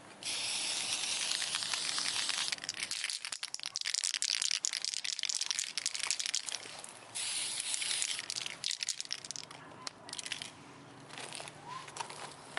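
Aerosol spray paint can hissing in three long bursts as paint is sprayed onto a steel axe head, followed by crunching footsteps on gravel.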